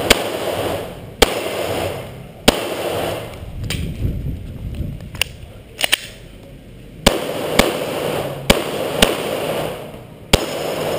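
9mm Glock 17 pistol fired in about a dozen shots at an uneven pace, some in quick pairs, each followed by a short echo.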